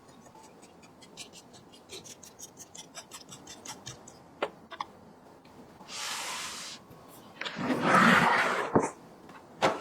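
Computer parts being handled during a PC build: a run of small plastic and metal clicks and ticks, a short hiss about six seconds in, then a louder rustling scrape and a final click.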